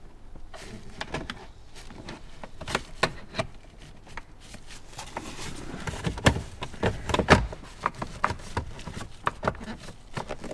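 Plastic upper and lower steering column cowls of an Audi Q7 being handled and hooked together: a run of irregular plastic clicks and knocks, loudest about six to seven seconds in.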